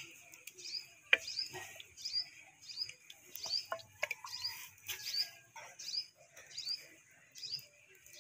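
A small bird chirping over and over, a short falling chirp about twice a second. Under it are the clinks and scrapes of a ladle stirring curry in a clay pot, with the sharpest clink about a second in.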